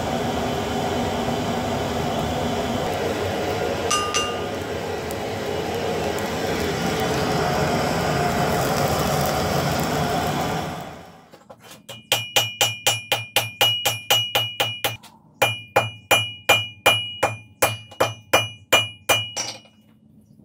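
Steady rushing of the forge fire under its air blast for the first half. It fades out, then comes a run of hammer blows on hot wrought iron over the anvil, about three a second with a short break, each blow leaving the anvil ringing.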